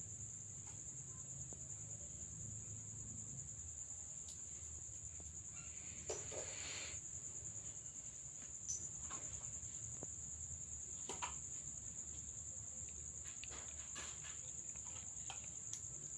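Crickets trilling steadily at a faint level over a low background hum, with a brief rustle about six seconds in and a few faint clicks.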